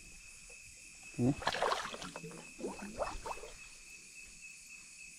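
Water splashing and sloshing in short bursts among reeds and branches in shallow water, over a steady high drone of night insects. A single short spoken word comes about a second in.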